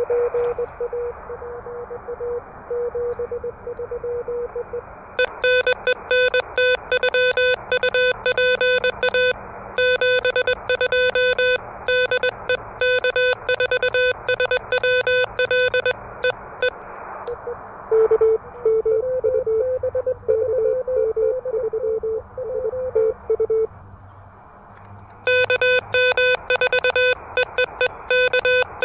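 Morse code on an Elecraft KH1 transceiver. A distant station's keyed tone comes through receiver hiss at the start and again about 18 seconds in. Louder, buzzier bursts of the operator's own sending sidetone at the same pitch run from about 5 seconds in and again near the end.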